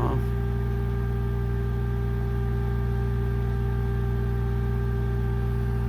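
Steady machine hum made of several fixed, unchanging tones, from an off-grid battery-charging setup under heavy load: a diesel generator running and a Magnum inverter/charger charging at about 85 amps with its cooling fan on.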